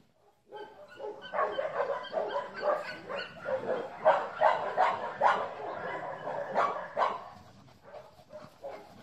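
A black-and-tan dog barking and yipping in a quick run of short calls at cats lying nearby, starting about a second in and tapering off near the end.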